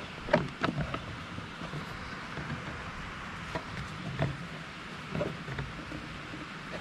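Hands working a rubber V-belt over an engine's cooling-fan blades: a few scattered light knocks and clicks with some rubbing, over a steady background hiss.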